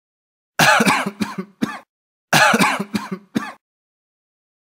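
A person coughing in two fits about a second and a half apart, each a loud cough followed by a few shorter ones.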